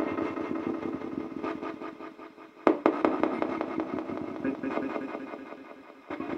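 Spirit communication device (spirit box) playing through its speaker: a continuous, rapidly stuttering electronic buzz with echo, broken by a sharp click about two and a half seconds in and fading near the end.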